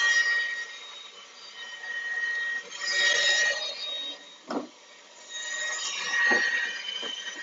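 KitchenAid stand mixer running, a steady high motor whine that swells and fades, as it beats cold buttercream in its metal bowl. Two short knocks come midway.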